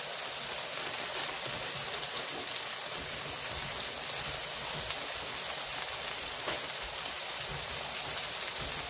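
Hamburger patties and buttered buns frying on an electric flat-top griddle: a steady grease sizzle with faint scattered crackles.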